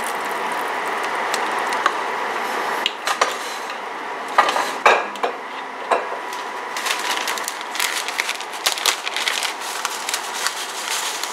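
Wooden spatula stirring chunks of pork in a pot of simmering braising liquid, knocking and scraping against the pot, with a few scattered knocks at first and more frequent clicking in the second half. A steady hiss of the hot liquid runs underneath.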